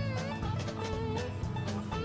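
Background music: a melody that glides in pitch over a steady beat.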